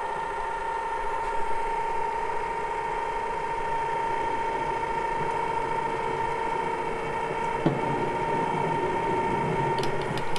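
Small metal lathe running at speed with a steady high whine while a centre drill in the tailstock feeds into the end of a spinning metal pin. A single short knock comes about three quarters of the way through.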